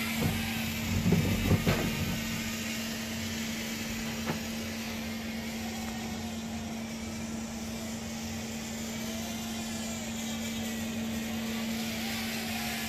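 Small quadcopter drone's motors buzzing steadily in flight, the pitch wavering as the throttle changes. A few short knocks about a second in.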